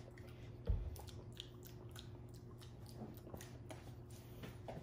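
Faint wet mouth clicks and smacking from someone drinking water and working a powdery taste out of the mouth, with one soft low thump less than a second in.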